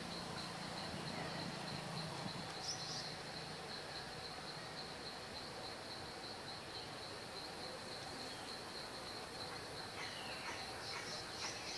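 Outdoor nature ambience: a steady high insect trill throughout, with a few short bird chirps, one a few seconds in and a quick series of falling chirps near the end.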